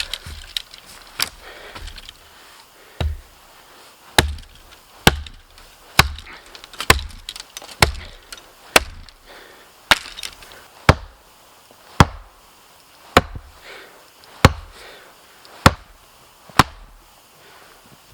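A small tree being chopped down with a hand-swung blade: a steady series of sharp chopping strikes into wood, about one a second, which stop near the end.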